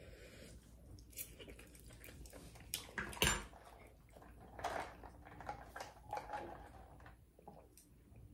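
Quiet eating sounds: a few sharp clicks and knocks of a fork and cup, the loudest a little over three seconds in, then soft sipping through a straw from a plastic tumbler.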